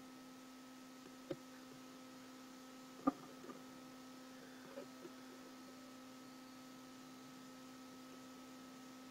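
Faint steady electrical hum, a low tone with a fainter higher whine above it, broken by a few soft clicks, the clearest about three seconds in.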